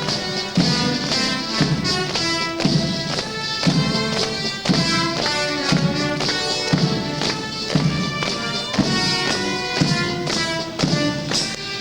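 A band playing a march, with a steady bass drum beat about once a second under the melody.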